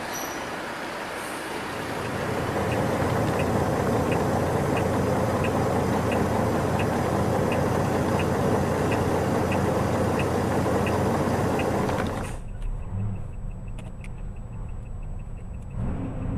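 Moving vehicle's engine and road noise heard from inside the cab, swelling about two seconds in, with a light tick repeating about one and a half times a second. Near the end it cuts abruptly to a much quieter low rumble of another vehicle driving.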